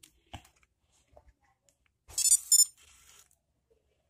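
A Sony compact digital camera gives a quick high double beep about two seconds in as it is handled. A faint handling click comes shortly before.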